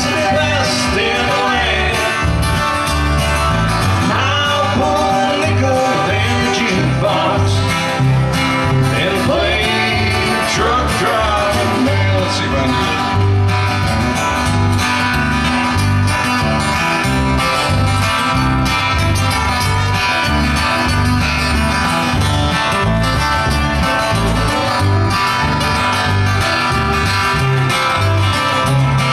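Live country band playing with acoustic guitars, electric guitar and upright bass over a steady beat. A voice sings a melody line over roughly the first twelve seconds, then the instruments carry on.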